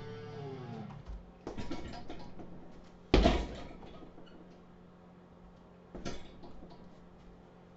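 Kicks landing on a hanging heavy punching bag: a few thuds about a second in, one hard, much louder thud about three seconds in, and another about six seconds in.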